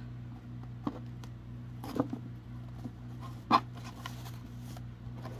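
Satin ribbon being untied and pulled off a cardboard gift box: soft rustles and a few light taps and clicks of the box being handled, the loudest about three and a half seconds in, over a steady low hum.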